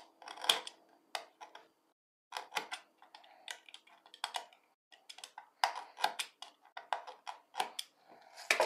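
Utility knife with a snap-off blade cutting through wooden popsicle sticks on a wooden cutting board. It makes a run of short, irregular scraping clicks with brief pauses between strokes.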